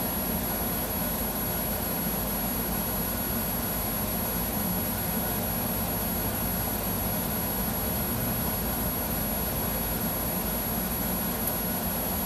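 Steady, unchanging background noise with a faint high-pitched whine.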